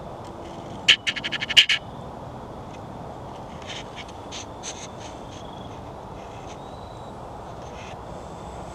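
A bird calling outdoors: a loud burst of rapid, harsh repeated notes about a second in, then a few fainter calls around four seconds, over a steady background hiss.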